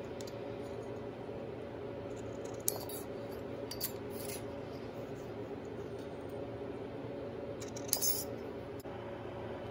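Tin snips cutting strips of thin steel shim stock: a few short, crisp snips, the strongest near the end, over a steady low hum.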